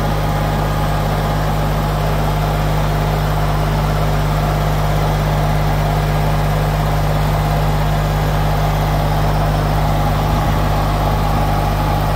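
Kubota compact tractor's diesel engine running at a steady speed as its front loader lifts a pallet.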